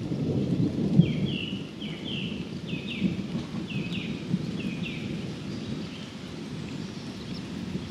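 Thunder rumbling low and long, easing off after the first few seconds, over a soft hiss of light rain. From about a second in, a bird repeats a short, downward-sliding call many times.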